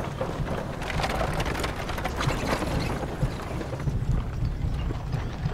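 Footsteps and a horse-drawn cart moving along a gravel road: a dense, irregular run of crunches and rattles.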